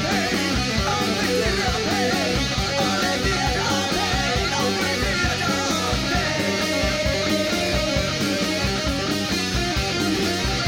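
Live rock band playing heavy music: electric guitar to the fore over bass guitar, keyboard and a fast, pulsing low end.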